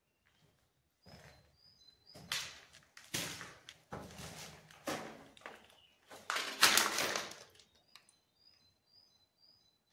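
Footsteps crunching and scraping over grit, gravel and broken debris on a concrete floor, several uneven steps, the loudest a little past halfway. Faint short bird chirps come twice, around two seconds in and near the end.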